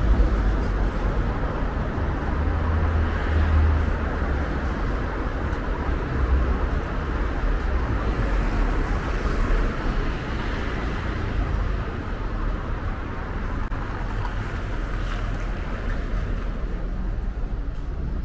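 Steady road traffic noise along a wide city avenue, with low wind rumble on the microphone.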